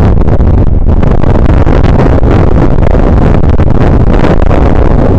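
Strong wind buffeting a camera microphone: a loud, continuous low rumble with constant crackling gusts.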